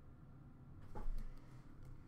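Quiet room tone with a faint tap about a second in as trading cards are handled.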